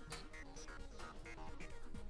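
Background electronic music with a steady beat and held synth notes.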